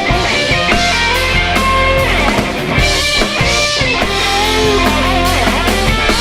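Live band playing an instrumental break with drums, bass and a guitar lead whose notes bend up and down.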